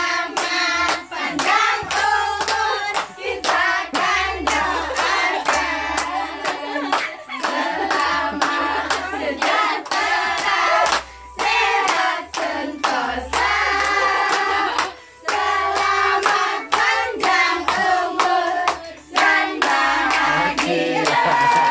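A small group clapping in a steady rhythm, about two to three claps a second, while singing a birthday song.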